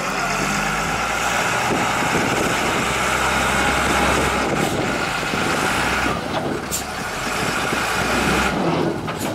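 A JCB loader's diesel engine runs steadily under load as the machine lifts and carries a large rock in its front bucket, with a few short clicks.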